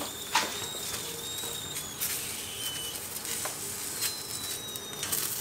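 Green beans sizzling on a hot ridged cast-iron grill pan as they char, with a couple of light clicks as a spatula turns them.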